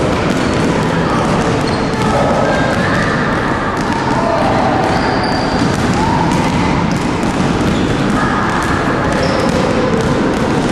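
Several basketballs bouncing on a wooden gym floor, many irregular overlapping thuds from players dribbling and shooting, with voices in the background.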